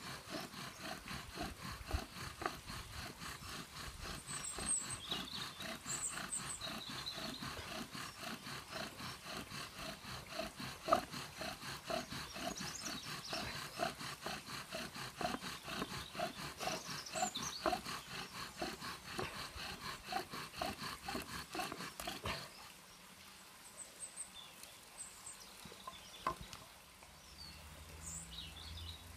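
Bow drill being worked hard: the wooden spindle grinds and squeaks in the wooden hearth board, rasping with each stroke of a bow strung with strimmer line, at about two strokes a second. The drilling is hot enough to smoke, and it stops abruptly about two-thirds of the way in.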